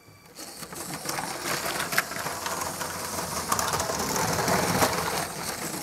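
Battery-powered Lego City passenger train running on plastic track: a steady motor hum with the wheels rattling over the track, starting about half a second in, with a couple of sharp clicks from the track joints.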